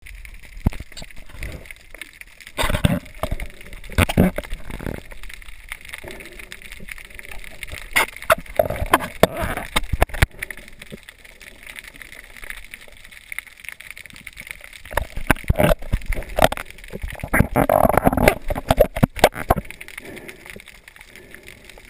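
Water sloshing and gurgling around a snorkeler as he dives, heard muffled through an underwater camera, with irregular knocks and splashes that come thickest around 3 to 4 seconds in and again past the middle.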